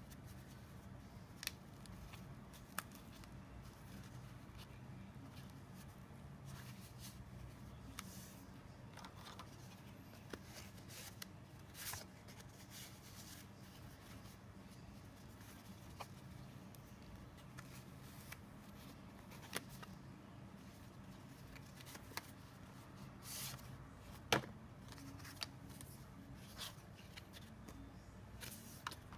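Faint handling noise of a fabric card holder being flexed and rubbed in the hands, with cards and an elastic strip handled, and scattered light clicks and taps over a low steady hum.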